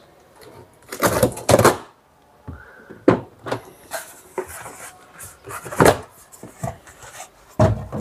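Packing being pulled out of a washing machine's spin tub: plastic bags rustling and a polystyrene insert scraping, with a few sharp knocks and clicks.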